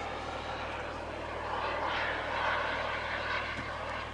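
Jetsmunt TS-166 turbine of a large Feibo Viper RC jet model in flight at a distance: a steady rushing jet noise that swells and eases slightly as the model flies by.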